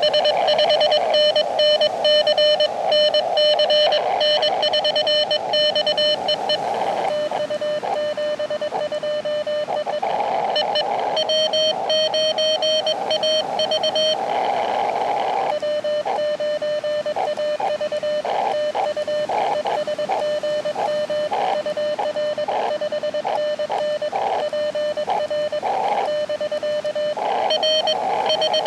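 Morse code (CW) from an Elecraft KX2 transceiver: a single mid-pitched tone keyed rapidly on and off in dots and dashes, with short stretches of receiver hiss in a few of the pauses.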